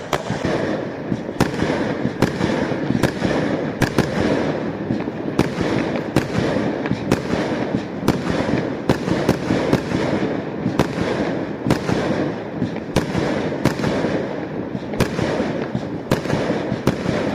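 Fireworks display going off in rapid succession: sharp bangs, often two or three a second, over a continuous dense crackling rumble.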